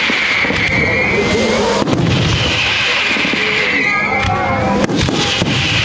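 Fireworks going off: a continuous crackle and hiss with repeated sharp bangs, and high wavering whistles sounding over them.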